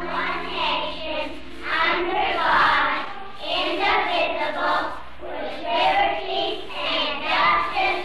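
A group of children singing together in short phrases that rise and fall about once a second, on an old broadcast recording with a dull top end.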